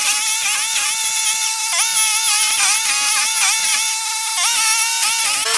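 Toro STX-38 stump grinder running at full throttle while its cutter wheel chews into a stump, giving a steady high-pitched whine. The pitch dips briefly several times as the cutter teeth bite into the wood and load the engine.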